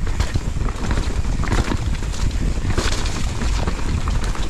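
Wind buffeting the microphone during a fast mountain-bike descent on a dirt trail, a steady heavy rumble mixed with tyre noise and scattered rattles and knocks from the bike over rough ground.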